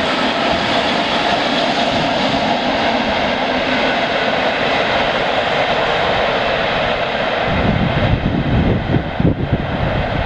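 Freight train of open coal wagons rolling past on the rails with a steady running noise, the high end fading away near the end as the train draws off. Irregular low buffeting on the microphone comes in about seven and a half seconds in.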